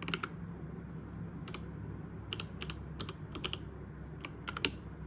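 Keys of a mechanical keyboard with red linear switches being pressed one at a time, about a dozen sharp clacks at uneven spacing, some in quick pairs.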